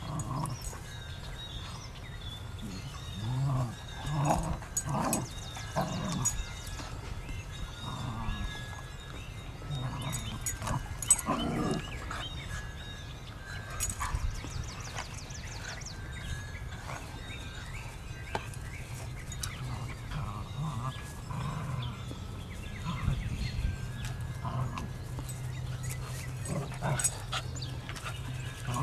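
Two dogs, a giant schnauzer and a Jack Russell terrier, play-fighting: growls and short yips come in irregular bursts, busiest in the first dozen seconds and again near the end.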